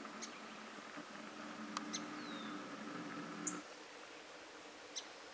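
Small birds giving scattered, brief high chirps, about five calls, one a short falling note. Beneath them is a faint steady hum that cuts off abruptly about two-thirds of the way through.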